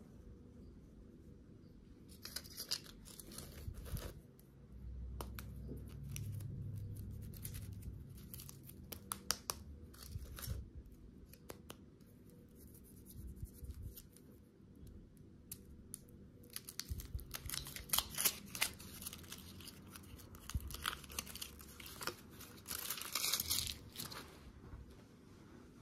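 Foil chocolate wrappers crinkling and tearing as they are unwrapped by hand, in bursts of crackling. The loudest stretch comes near the end, as the red foil comes off a heart-shaped chocolate.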